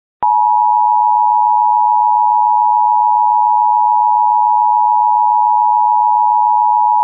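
Emergency Alert System attention signal: the steady two-tone alert tone, 853 and 960 Hz sounding together, starting a moment in and holding without change. It signals that an emergency alert message is about to be broadcast.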